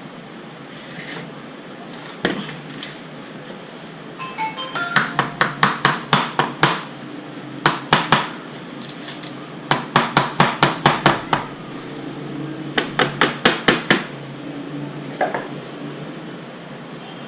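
Rapid metallic tapping and clicking in four short runs, about five strikes a second: hand tools working the metal crimp tabs of a car radiator to open its tank.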